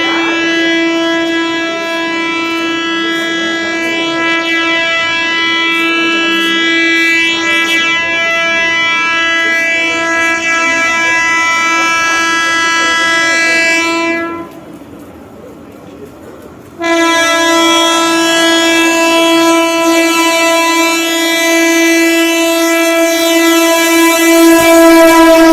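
Horn of a 3-phase MEMU electric train sounding in long, unbroken blasts as it runs through a station without stopping: one blast of about fourteen seconds, a break of two to three seconds, then a second blast held to the end. A loud, rough, single-note horn.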